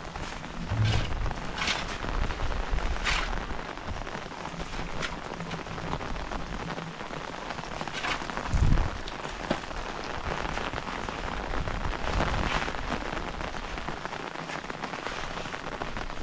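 Steady rain falling on a surface, with scattered sharper drop hits and one low thump about halfway through.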